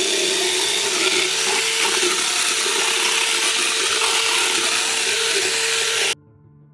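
Motorized Swiss dental float running against a horse's molars: a loud, steady grinding whir with a steady hum under it. It starts abruptly and cuts off about six seconds in.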